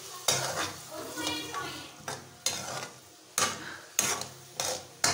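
Metal spatula stirring carrot strips in a hammered metal kadai, knocking and scraping against the pan about seven times at uneven intervals, over a light sizzle of the frying oil.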